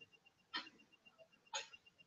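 Faint, rapid, even ticking of a fishing reel being cranked to wind in a lure, about eight ticks a second. Two brief soft sounds about a second apart stand out above it.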